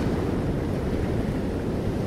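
Ocean surf: foaming waves washing in over sand and around rocks, a steady deep wash of water with no sharp crash.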